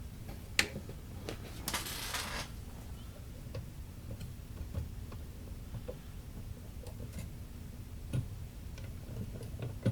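Faint steady low hum with scattered light clicks and a short hiss about two seconds in, from a 1954 GE C407 tube radio just powered up through a Variac and still warming up, no station yet.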